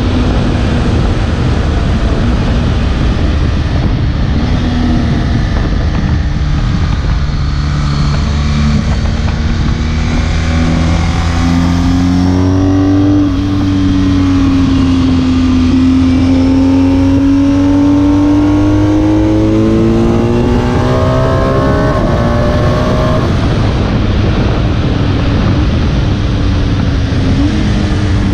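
BMW R1250 GS's 1254 cc boxer-twin engine running at road speed, heard from the rider's seat through heavy wind noise on the microphone. Its note rises and falls with the throttle, climbing through the middle with a brief drop part way, and falls away near the end.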